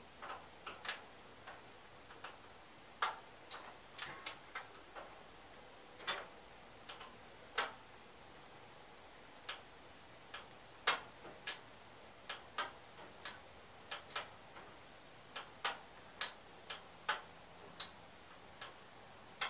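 Ratchet wrench clicking as it works the engine mounting bolt: irregular sharp clicks, sometimes in quick runs of three or four, with pauses between strokes.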